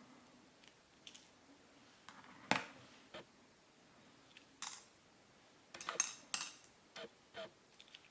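Small metal clicks and taps as the pins are taken out of a dismantled Mul-T-Lock MT5 lock cylinder. The clicks come singly and irregularly, the sharpest a couple of seconds in, with a quick cluster about six seconds in.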